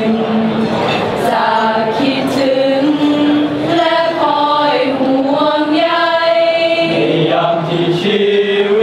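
A choir of police cadets singing in harmony, several voices holding long notes together and moving from chord to chord.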